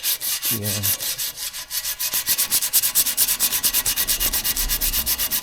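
Orbital sander sanding the paint off an aluminium bicycle frame down to bare metal: a steady hiss pulsing about ten times a second.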